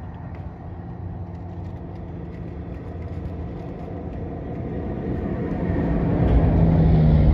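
A motor vehicle on the road close by, its low engine hum and rumble building steadily louder and peaking near the end as it comes past.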